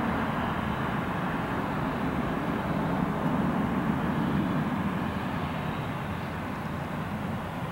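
Airbus A320-200's two CFM56 turbofan engines at climb thrust as the jet climbs away just after takeoff: a steady jet noise that slowly fades over the last few seconds.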